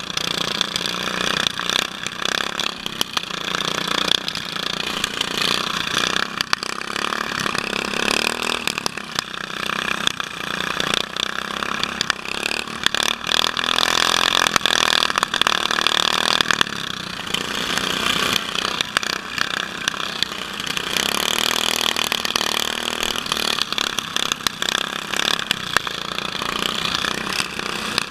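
Several small riding-mower engines running together in a derby heat, rising and falling in speed, with frequent sharp knocks and rattles throughout.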